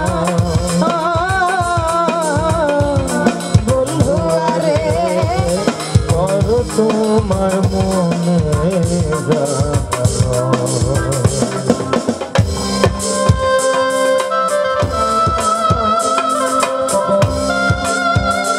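Live band music: a woman sings a Bengali folk song with a wavering voice over a steady hand-drum beat and keyboard. About twelve seconds in, the voice stops and an instrumental melody in held notes carries on over the drumming.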